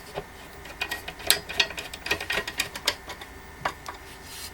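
Irregular light clicks and taps of a Phillips screwdriver and screw against the stand's steel support as a screw is started in by hand.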